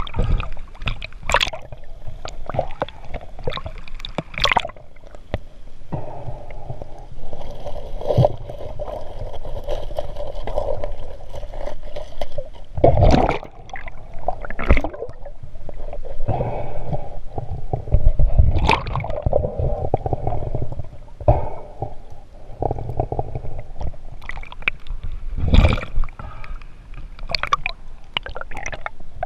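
Water splashing and gurgling around a camera at the surface, then muffled underwater noise with irregular splashes and knocks as a snorkeler swims. A steady hum runs underneath from about six seconds in.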